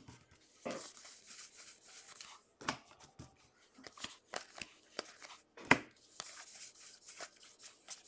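Bowman baseball trading cards being thumbed through by hand, the card stock sliding and snapping in scattered light clicks and rustles, with one sharper snap about two-thirds of the way through.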